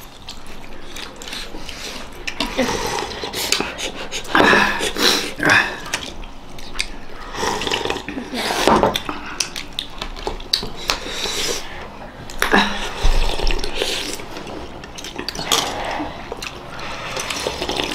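People slurping hot, spicy momo soup from bowls and eating the dumplings, with spoons and forks clinking against ceramic bowls and short mouth and breathing noises in between.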